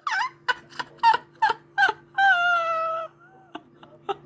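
A person's high-pitched cackling laugh: a rapid run of short yelping bursts, then one long held squeal.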